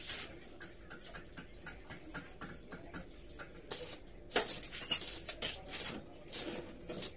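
Stick (arc) welding on steel tube: the electrode crackling and sputtering irregularly, with louder pops from about four seconds in.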